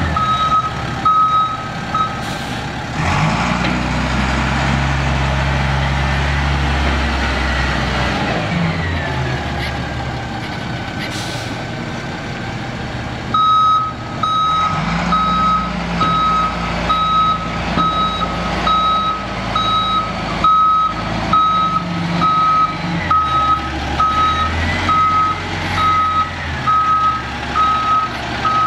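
1999 International 4700 dump truck's DT466 inline-six diesel engine running and revving as the truck maneuvers, with its backup alarm beeping steadily while it reverses. The beeping stops for a stretch in the first half and starts again about halfway through.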